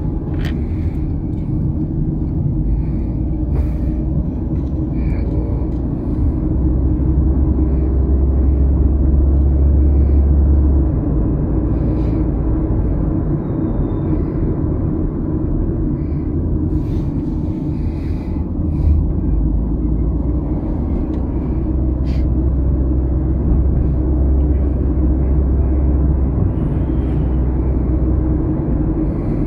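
Car moving on the road, heard from inside: a steady low rumble of road and engine noise that swells for a few seconds about a quarter of the way in.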